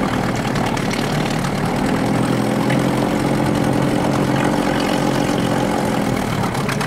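Mercury 8 hp outboard motor running steadily on a kayak catamaran.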